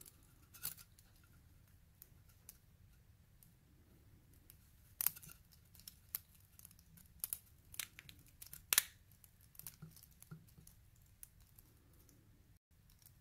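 Faint, irregular small clicks and ticks of a lock body, its brass plug and a pinning tool being handled in the fingers, with a few louder clicks about five and nine seconds in.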